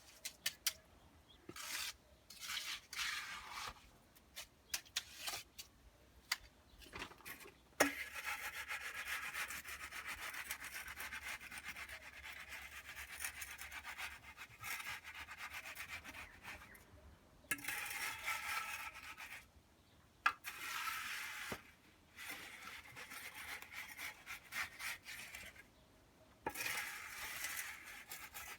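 A hand tool scraping through wet concrete mix as it is spread, in long scraping spells broken by short pauses, with scattered sharp clicks and knocks in the first few seconds.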